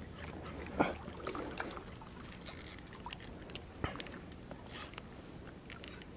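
Spinning reel cranked to retrieve a lure: a faint mechanical whirr with a few sharp clicks, the loudest about a second in and another near four seconds.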